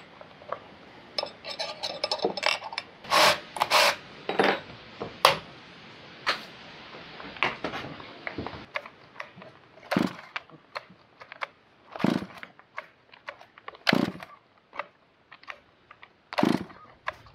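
Metal hand tools clinking and knocking on a wooden workbench while a bar and chain are fitted to a Stihl chainsaw. This is followed by a string of single sharp knocks about two seconds apart. No engine is running.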